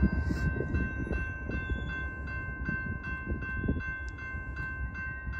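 Railroad crossing warning bell ringing in even, rapid strokes, about three a second, as the crossing gate arms lower: the signal that a train is approaching. A low rumble runs underneath.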